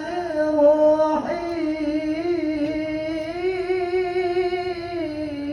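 Melodic Quran recitation (tilawah): one reciter's voice draws out a long, ornamented note of the basmala, the pitch turning slowly up and down. The voice breaks briefly about a second in, then carries the note on.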